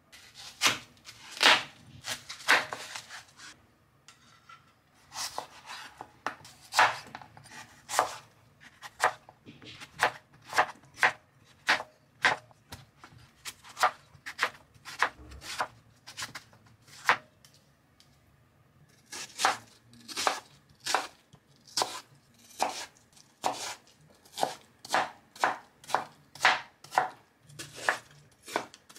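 Kitchen knife cutting watermelon on a wooden cutting board: a run of sharp knife strikes on the board, about one a second, pausing briefly about two-thirds of the way through and then coming quicker.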